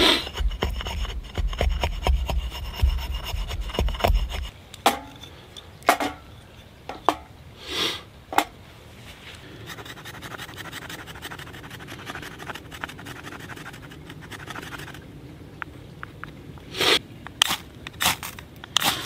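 An axe blade shaving a stick against a log, then a knife scraping a stick into fine tinder shavings in a steady rasp. Near the end come several sharp, loud scrapes of a ferro rod striker throwing sparks onto the tinder.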